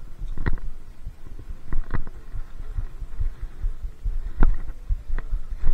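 Handling noise on a body-worn action camera: steady low thumping and rubbing, with several sharp clicks and knocks, while a freshly caught catfish is held up to the lens.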